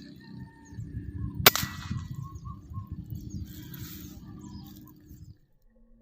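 A single sharp crack of an air rifle shot about one and a half seconds in, over a low rumbling noise with birds chirping; the background cuts off abruptly near the end.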